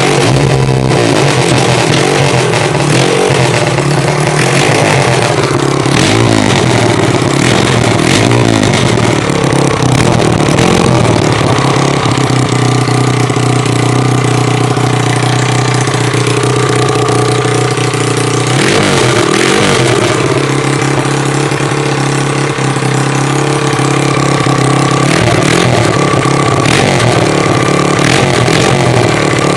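A 140 cc pit bike engine, a single-cylinder four-stroke, running on a test stand on a small dose of petrol fed in by hand. It runs steadily and is revved up and back down a few times.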